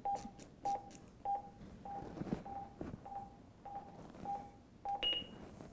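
AED trainer unit sounding its CPR metronome: short, evenly spaced beeps at about 100 a minute to pace chest compressions. Faint clicks come in the first second, and a single higher-pitched beep sounds near the end.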